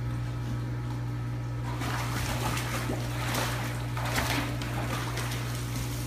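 Water splashing and sloshing as a border collie paddles up to a pool ramp and climbs out, the splashing picking up about two seconds in, over a steady low hum.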